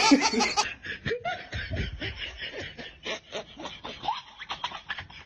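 A person snickering and laughing in short, rapid bursts that grow fainter toward the end.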